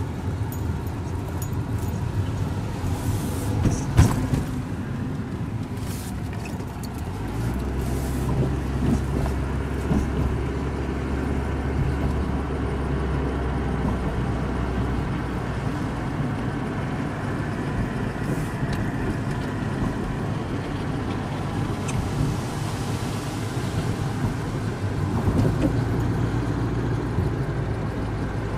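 Car engine and road noise heard from inside the cabin while driving, a steady low rumble. A deeper engine drone holds for several seconds from about a quarter of the way in, and there is a single knock about four seconds in.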